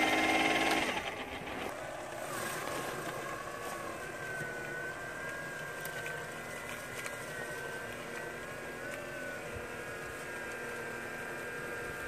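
Small 3D-printed snow blower on a remote-control tracked vehicle, its impeller motor whining as it chews through and throws snow. The whine is loud for about the first second, then drops to a quieter, steadier whine that wavers slightly in pitch.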